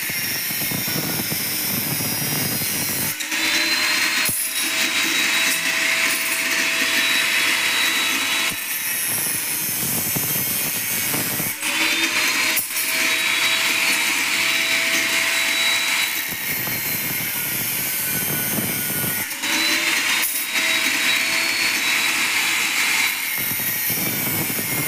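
Electric angle grinder with an abrasive cut-off disc running and cutting thin iron strips. Its note changes every few seconds as successive cuts are made.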